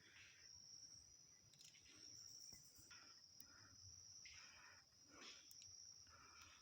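Faint, steady high-pitched trill of insects in the forest, with soft rustles coming and going every second or so.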